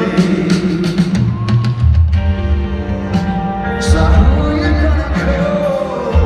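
Live rock band playing, with a male lead vocal over bass and drums, recorded from far back in a stadium crowd.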